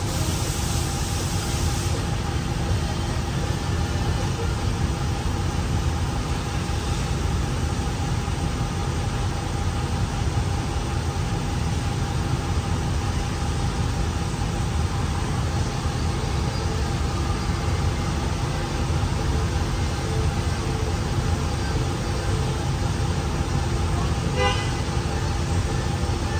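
Steady mechanical drone with a low rumble and a couple of constant tones, unchanging throughout. A short rattle of clicks comes near the end.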